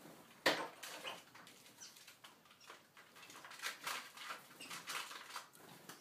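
Seagreen parrot finches moving about a wire cage and feeding: a scattered series of light clicks and taps of feet and beaks on wire and plastic seed cups, with one sharper knock about half a second in.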